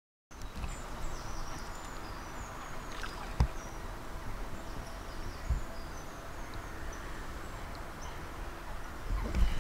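Lakeside ambience: small birds chirping over a steady low rumble of wind on the microphone, broken by a few brief low thumps, the loudest near the end.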